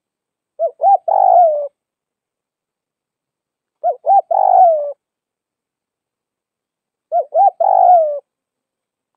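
Spotted dove cooing: three identical phrases about three seconds apart, each two short notes followed by a longer note that falls away at the end.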